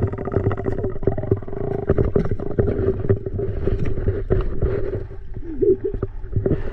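A motor running steadily at one pitch, with frequent short, irregular knocks over it.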